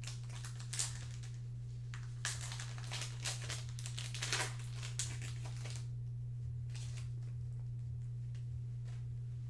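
Foil wrapper of a Panini Prizm football card pack being torn open and crinkled by hand, in a cluster of rustling tears mostly between about two and five seconds in. A steady low hum runs underneath.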